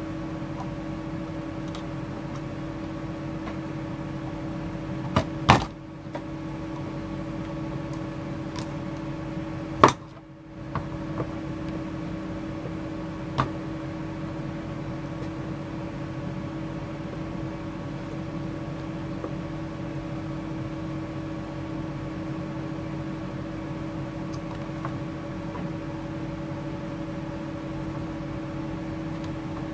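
Steady mechanical hum with several fixed pitches, broken by a few sharp metallic clicks of a screwdriver working at the brass spigot on a small DC motor's front end. The loudest click comes about ten seconds in.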